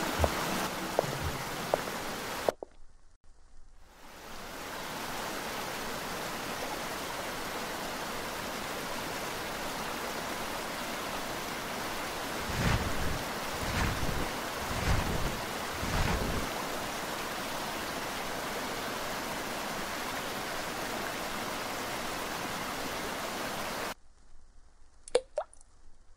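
Fountain water splashing in a steady, even rush, with four low thumps about a second apart partway through. A few seconds of music fade out at the start, and the water stops abruptly near the end.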